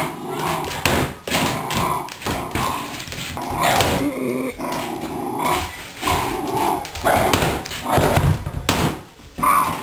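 A small terrier growling and barking in rough play, while the plastic dog basket it is shoving knocks and scrapes against a wooden floor in repeated short clatters.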